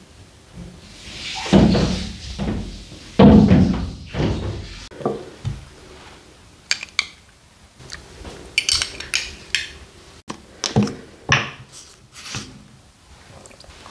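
A few heavy, dull thumps, then a run of light clinks and scrapes: a metal spoon against a small glass bowl and dishes as mustard seeds are tipped into soy sauce and stirred.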